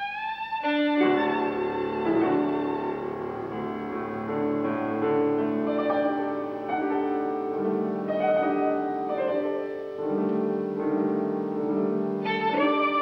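A violin and piano play together. The violin holds a note alone at first, then the piano comes in about a second in with repeated chords under the violin's line.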